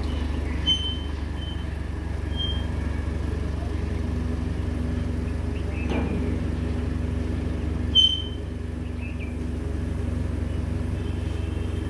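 A flatbed tow truck's engine runs steadily, powering the hydraulic tilting deck as it moves. A few short high chirps sound over the hum, the clearest about eight seconds in.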